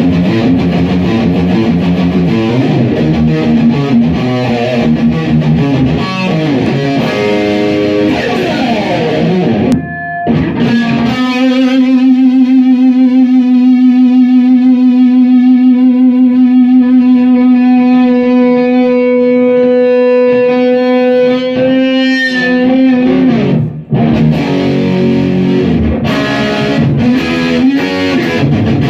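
Electric guitar played through a Marshall JCM2000 60-watt all-valve amp: quick riffing, then a single note held for about ten seconds with a wavering vibrato, then the riffing picks up again.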